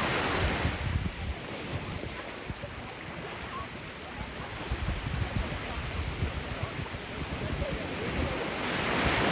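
Ocean surf breaking and washing up a beach, swelling loudest at the start and again near the end, with wind buffeting the microphone.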